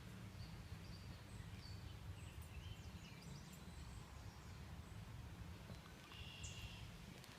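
Faint evening outdoor ambience by a pond: a steady low rumble, with a few short, faint high chirps scattered through it, the clearest about six seconds in.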